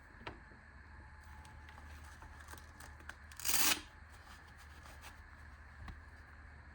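Handling noise from a rechargeable lantern and its packaging: a few small clicks and knocks, with one short rustling scrape about three and a half seconds in.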